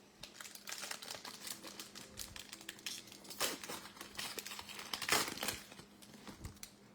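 Trading-card pack wrapper being crinkled and torn open by hand: a dense run of crackles, with louder rips about three and a half and five seconds in.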